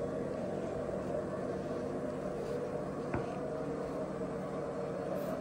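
A washing machine running with a steady hum, with one faint click about three seconds in.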